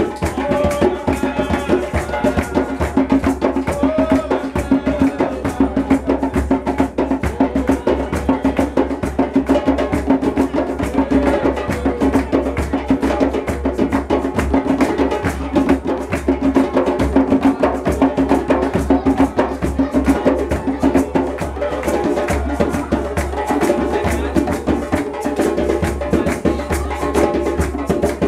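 Live church worship music: a hand drum and other percussion keep a quick, steady beat under singing voices.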